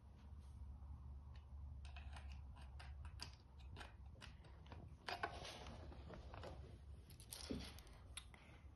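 Small plastic clicks and rattles of Lego pieces being handled and pressed together, irregular and faint, with a couple of brief rustles about five and seven and a half seconds in.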